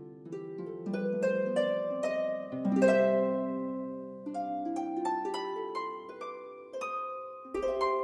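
Background music on a plucked string instrument: a gentle melody of single notes, each struck and left to ring out.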